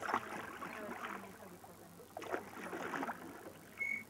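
Wooden oars of a small rowing boat dipping and pulling through lake water in uneven strokes, with a short high squeak near the end.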